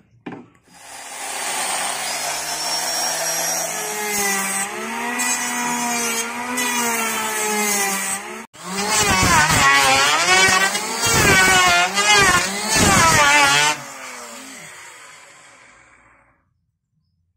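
A motor running and revving, its pitch swooping up and down again and again. It breaks off for an instant about halfway, comes back louder, then fades away near the end.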